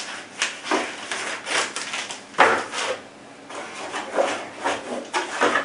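Irregular rustling and scraping of paper, plastic sleeve and cardboard packaging being handled, as items are worked out of a cardboard box tray. The loudest scrape comes about two and a half seconds in.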